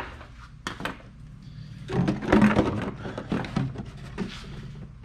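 Scissors snipping fishing line, a couple of quick sharp clicks, then a longer stretch of rustling and knocking as the gear is handled.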